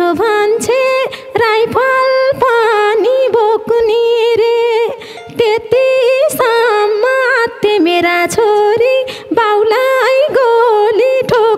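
A woman singing a slow, unaccompanied Nepali folk dohori line, her voice sliding and wavering around high held notes with short breaks between phrases.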